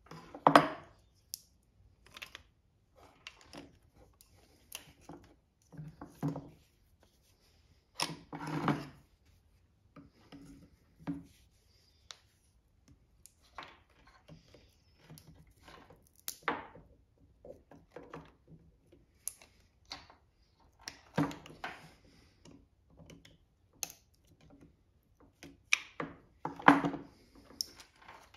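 Irregular clicks, clinks and knocks of hand tools and small metal engine parts being handled and set down during small-engine disassembly, with a few louder clunks.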